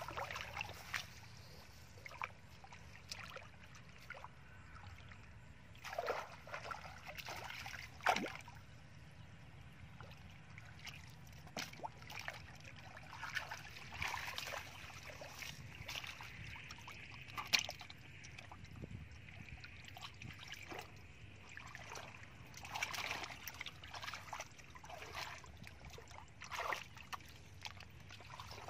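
Shallow muddy water splashing and sloshing in irregular bursts as a plastic basket is scooped and dragged through it.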